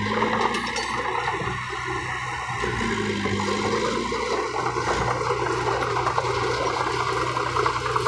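Small crawler bulldozer's diesel engine running, its pitch wavering briefly near the start and again around three seconds, under a steady clatter and scraping as the dozer pushes soil and rock.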